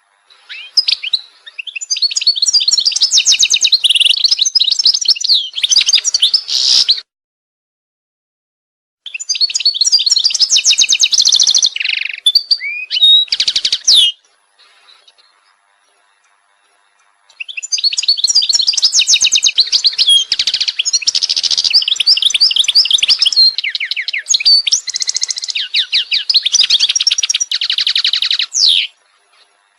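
A songbird singing long, rapid trilling phrases of fast-repeated chirps, three long bursts of song broken by a couple of pauses of a few seconds.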